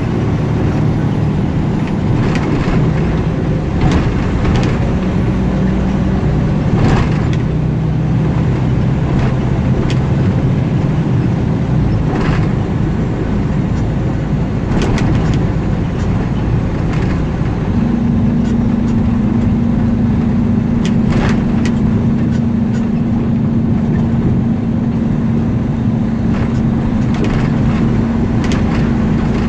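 Car driving on a city road, heard from inside the cabin: steady engine and tyre noise with a low hum that shifts higher in pitch about two-thirds of the way through, and a few short knocks scattered throughout.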